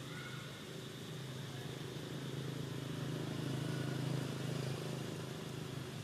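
Low, steady hum of a motor vehicle engine running, growing louder towards the middle and then easing off.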